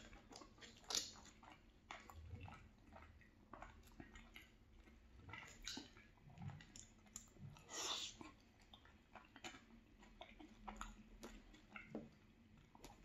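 Faint, close-up chewing of gravy-soaked fries and melted cheese, with scattered small wet mouth clicks and smacks and one louder one about eight seconds in.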